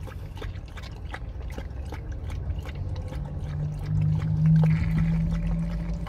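Dog lapping water from the plastic trough of a portable travel water bottle, a quick, irregular run of small laps. A low steady hum rises under it from about three seconds in.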